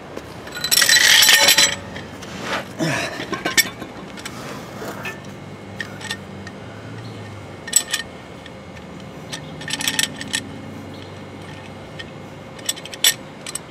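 Large Wilton steel C-clamp being handled and fitted against an axle truss and housing: scattered metal clinks and rattles, with a loud scraping noise about a second in.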